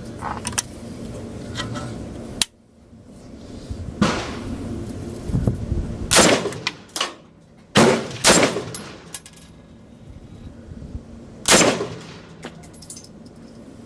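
Ruger Mini-14 semi-automatic rifle in .223 fired slowly, one shot at a time: about five sharp shots at uneven intervals, two of them close together a little past the middle, each with a short ringing tail.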